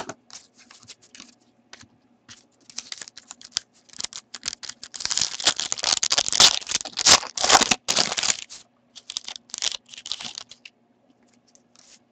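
A hockey card pack's foil wrapper is torn open by hand, crinkling and tearing in a dense run for several seconds. Lighter clicks of cards and wrapper being handled come before and after.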